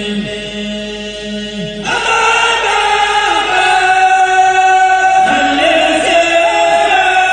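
A kourel of men chanting a Mouride khassida together without instruments. About two seconds in, more voices come in on a higher line and the chant grows louder.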